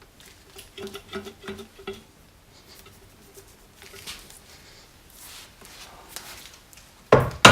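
Old fork oil draining out of a BMW R80 fork leg, pattering and dripping into a container in small irregular drips, with a loud knock near the end.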